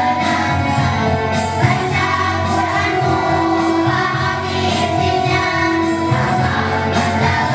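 Children's choir singing in unison over musical accompaniment with a steady beat, holding long notes.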